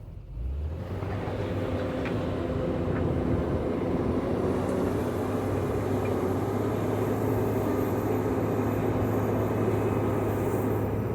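JCB 426ZX wheel loader's diesel engine working under load while cutting into gravel, its level dipping at the start and then rising within the first second and holding steady.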